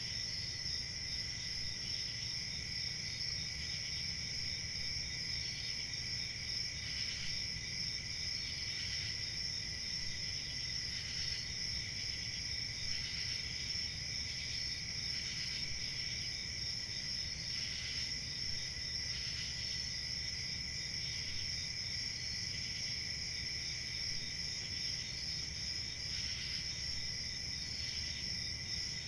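Crickets chirping in a steady, continuous high-pitched chorus, with short chirps repeating at even intervals over it.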